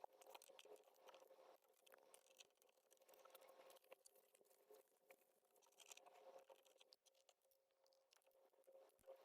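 Near silence: faint scattered clicks and rustles over a faint steady hum.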